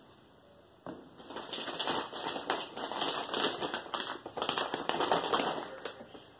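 Dry crackling and rustling from hands working potting materials, such as potting mix and a plastic plant pot. Lots of small clicks, starting about a second in and fading near the end.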